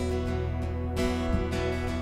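Instrumental worship music: acoustic guitar strumming over held keyboard chords and bass guitar.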